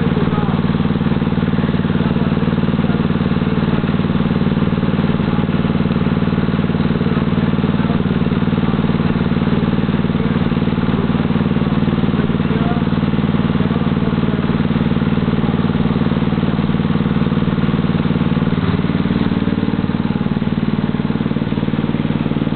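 Riding lawnmower's small engine running steadily at a low throttle; about nineteen seconds in, its pitch steps up a little.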